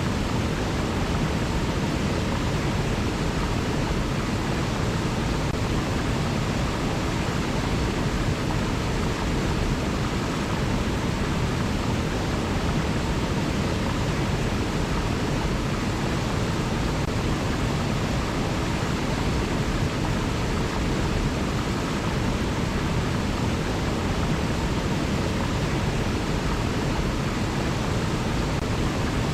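River water rushing: a steady, even rush that does not change, deepest in the low range.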